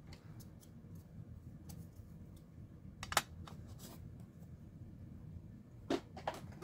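A few sharp plastic clicks and taps as a plastic-cased stamp pad is handled and put away, the loudest about three seconds in and two more close together near the end, over a low steady hum.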